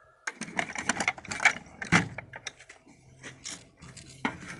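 Screwdrivers and other metal hand tools clinking and rattling in a drawer as it is handled: a quick, irregular string of clicks and clatters.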